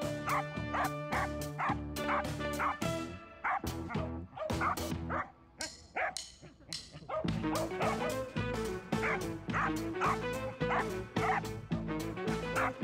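Corgis barking repeatedly, two or three barks a second, over background music; the barking breaks off briefly in the middle.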